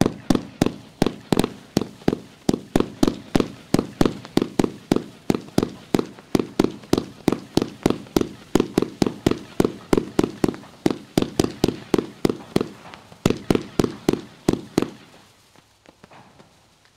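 Red and Blue Mine to Silver Falling Leaves 500-gram fireworks cake firing a fast, even string of sharp reports, about four a second. The reports stop about fifteen seconds in, leaving a fading echo.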